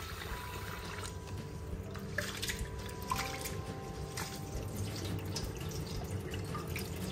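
Basmati rice being washed by hand in a bowl in a stainless steel sink: tap water runs into the bowl while fingers rub and swish the wet grains, with splashing and dripping. Near the end the bowl is tipped to pour off the cloudy water.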